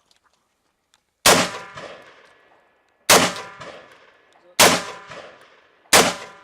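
Four rifle shots fired at a slow, even pace about a second and a half apart, each followed by a long ringing echo.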